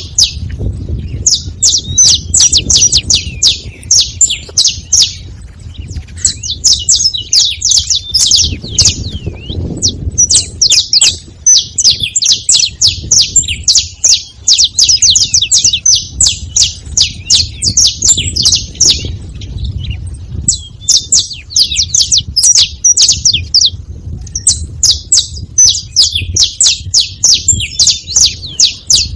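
Saffron finches calling in loud, chattering phrases of rapid high notes, each phrase several seconds long with short breaks between.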